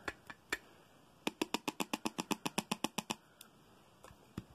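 Rapid light tapping on a plastic loose-powder jar as face powder is shaken out of it, about eight taps a second for about two seconds, after a few scattered clicks.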